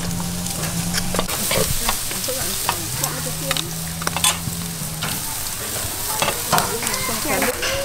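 Pork and shrimp sizzling on a charcoal grill grate, with metal tongs clicking and scraping against the grate and tray again and again. A low steady hum comes in twice.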